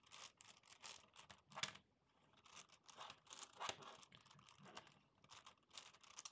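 Gigaminx, a five-layer dodecahedral twisty puzzle, being turned by hand: faint, quick, irregular clicks and scraping of plastic layers as they are twisted in rapid succession.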